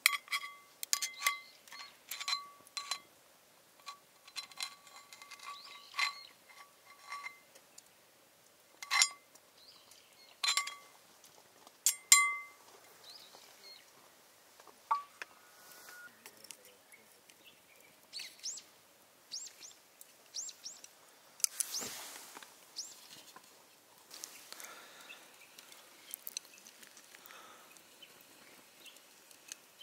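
A run of sharp metallic clinks for about the first twelve seconds, each ringing briefly at the same pitch, then a few short high bird chirps.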